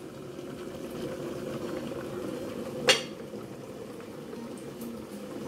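Curry chicken bubbling at a steady simmer in an aluminium pot on the stove, with one sharp clink about three seconds in.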